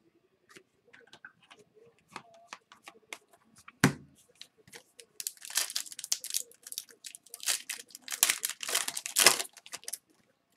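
Foil trading-card pack being torn open and crinkled, the wrapper rustling as the cards are pulled out. Before that, light clicks of cards being handled and one sharp knock about four seconds in.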